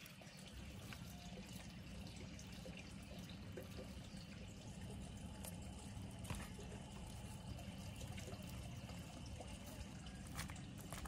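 Quiet steady background hiss and rumble, with a few soft clicks and rustles of a knife working the flesh off a grilled fish on crinkly aluminium foil.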